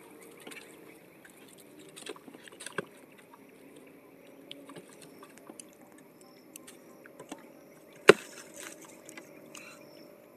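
Fish being worked free of a nylon gill net by hand in a boat: scattered soft rustles and small clicks from the mesh and fish, with one sharp knock about eight seconds in.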